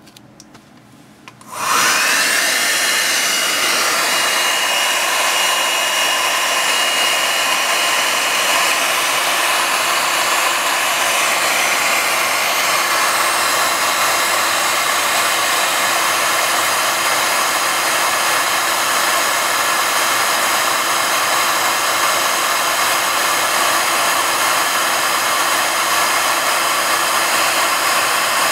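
Heat gun switched on about a second and a half in and blowing hot air steadily, reflowing solder paste on surface-mount pads. A faint high whistle rides over it for the first several seconds.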